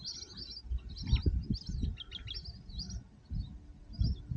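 Small birds chirping in many quick, high, short notes, thinning out in the last second or so. Under them are irregular low thumps and rumbling, loudest about a second in and near the end.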